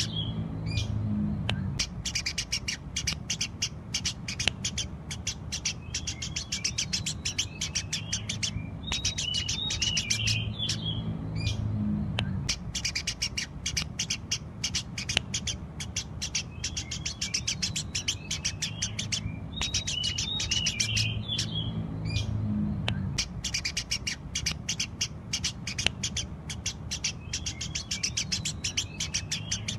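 Eurasian tree sparrows chirping busily in rapid, overlapping high chirps over a low steady hum, the same stretch of chirping recurring about every ten seconds.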